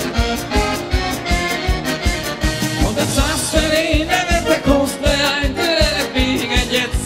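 Live band playing fast Hungarian mulatós dance music: a steady beat of about three strokes a second under a wavering melody line that grows busier about three seconds in.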